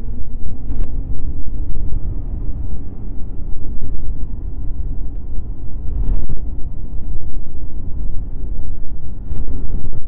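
Snowmobile riding along a groomed trail: a heavy, uneven low rumble with faint engine tones above it. Three sharp knocks come through, about a second in, about six seconds in and near the end.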